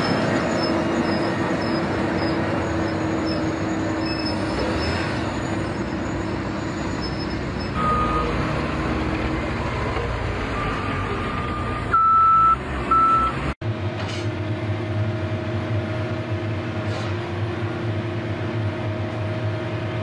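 JCB backhoe loader's diesel engine running as the machine drives, with a few short high beeps in the middle. Just past halfway the sound cuts out for an instant and comes back as a steadier, lower engine drone.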